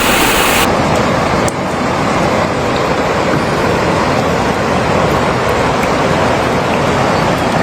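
Steady roar of a river in flood, rushing water without a break, with abrupt shifts in tone twice in the first second and a half.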